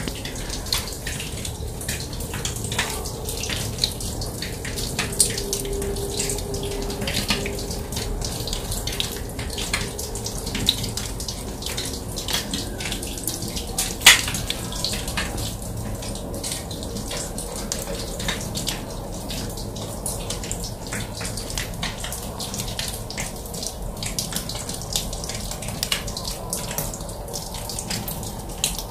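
Water from the watering of gravel-topped potted succulents: a steady wash of running water with a dense, irregular patter of drops that sounds like rain, and one sharper tap about halfway through.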